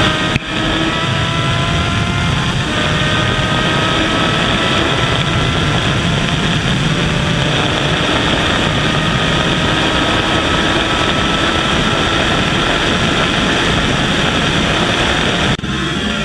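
Kawasaki Z900's inline-four engine at full throttle, its pitch climbing slowly as speed builds toward about 258 km/h, with one gear change about two and a half seconds in. Heavy wind rush on the helmet microphone almost covers the engine, and the sound cuts off suddenly near the end.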